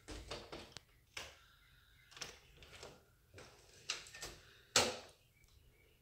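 Irregular knocks and clicks of someone moving about a house and handling an interior door, the loudest knock a little before the end.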